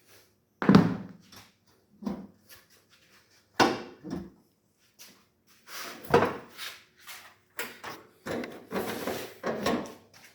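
A series of irregular knocks and clanks from work on a car's front fender, as its bolts are undone with a 10 mm spanner and the loose panel is shifted. The loudest knock comes just under a second in.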